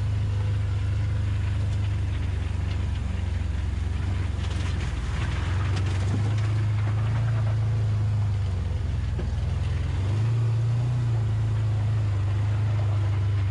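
Can-Am side-by-side engine running steadily under way, heard from the driver's seat, its pitch rising slightly about ten seconds in. About five seconds in, a brief rush of splashing comes in as the wheels run through shallow water at the shore.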